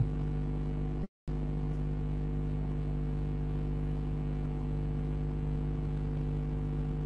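Steady low engine hum of a septic-tank vacuum truck pumping out a toilet, cutting out for a split second about a second in.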